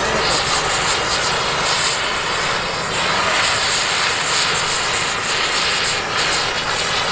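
Oxy-fuel gas torch flame hissing steadily as it heats a steel rivet on a truck chassis frame rail.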